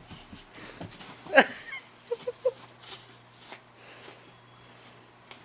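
Dog mouthing and chewing a plush rope toy on the floor. A loud short sound comes about a second and a half in, then three quick short squeaks.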